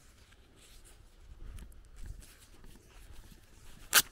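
Footsteps of someone walking on a dirt and grass path, heard as faint low thuds and small scuffs. A single sharp click near the end is the loudest sound.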